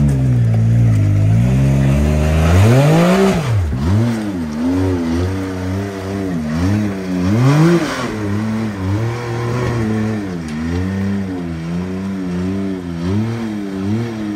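Can-Am side-by-side's engine revving up and down as it crawls up a rock ledge. The throttle blips rise and fall about once a second, with the loudest pulls about three and eight seconds in.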